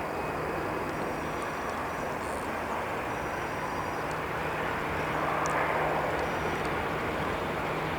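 Jet airliner's engines heard at a distance: a steady rushing noise with a low hum underneath, growing a little louder about five seconds in.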